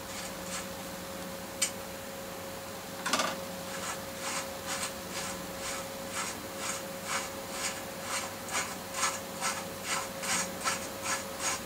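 A bicycle's threaded headset cup being spun off the fork steerer by hand, its fine threads rasping in short strokes about twice a second that quicken near the end. A single click comes about one and a half seconds in, and a steady faint hum runs underneath.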